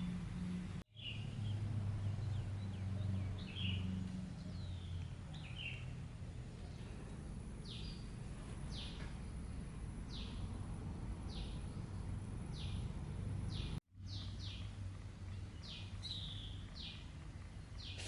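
Small birds chirping, a run of short, quick, falling chirps repeated about once a second, over a steady low hum. The sound cuts out abruptly twice.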